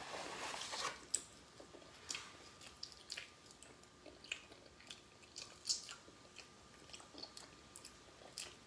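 A person chewing soft bread with the mouth close to the microphone: faint, irregular wet clicks and smacks. A brief rustle in the first second, as the bread is pulled apart.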